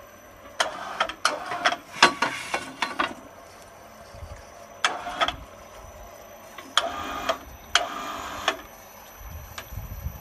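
Irregular bursts of mechanical rattling and sharp metallic clicks, four separate spells of clatter with quieter gaps between them.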